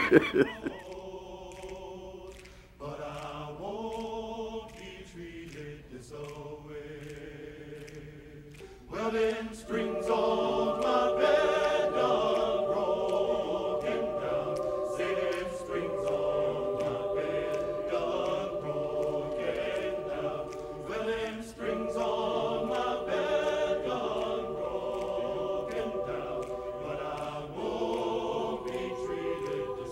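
Choir singing in sustained chords, softly at first, then fuller and louder from about nine seconds in.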